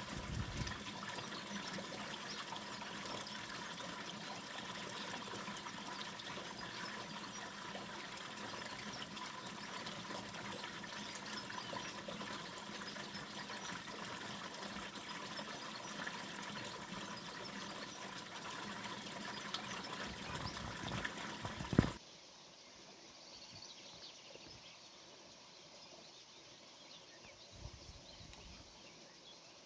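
Water running steadily from a fountain, a continuous trickle and splash. It cuts off suddenly about three-quarters of the way through, leaving a much quieter outdoor background.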